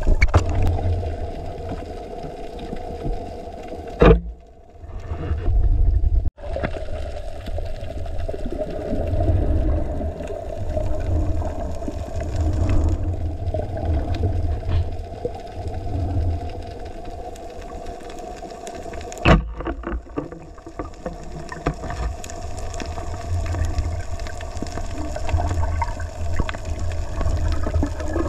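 Muffled underwater noise picked up through a camera housing: a low rumble with a steady hum over it, broken by a sharp knock about four seconds in and another about nineteen seconds in.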